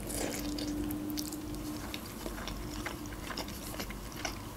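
A person chewing soft boiled khinkal dough and mutton with the mouth closed, making small wet mouth clicks. A faint steady hum runs under the first two seconds.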